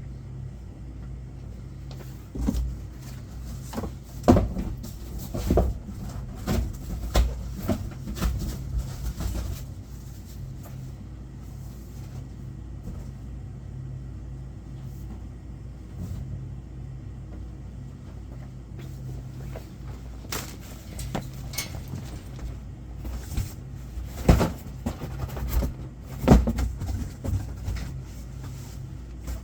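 Goods and boxes being handled and set down while a convenience-store delivery is sorted: two spells of knocks and thumps over a steady low hum.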